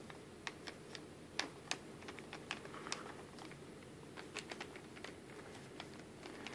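Pen writing on lined notebook paper: faint, irregular ticks and taps of the pen tip against the page, a few each second.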